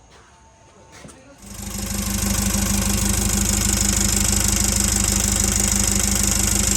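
Nissan Navara D40's engine starting about a second and a half in, then idling steadily with an even, rhythmic clatter.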